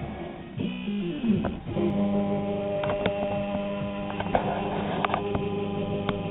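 Plucked guitar music for the first couple of seconds, then a steady electrical hum with scattered sharp clicks from the drawing robot's mechanism.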